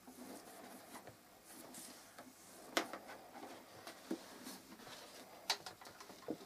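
Faint rustling of clothing and hands as a seated person shifts and moves, with a few sharp soft clicks, the clearest about three seconds in and again about five and a half seconds in.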